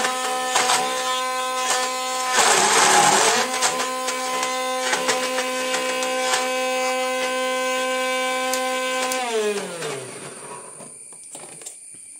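Atomberg BLDC mixer grinder motor running with a steady whine, with a burst of harsh grinding noise about two and a half seconds in and scattered clicks. About nine seconds in the whine falls in pitch as the motor winds down to a stop.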